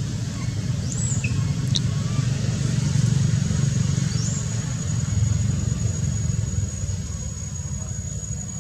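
Steady low rumbling background noise, with a few faint high chirps in the first half and a thin, steady high-pitched whine that starts about halfway through and holds.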